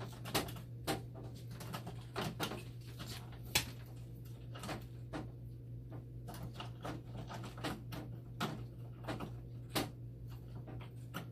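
Irregular sharp plastic clicks and knocks as the red and blue dialysate line connectors are fitted onto a hemodialysis machine's shunt and its door is handled, over a steady low hum.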